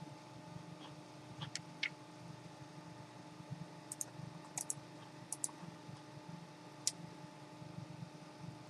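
A few scattered, sharp computer mouse clicks, several coming in quick pairs, over a steady faint hum.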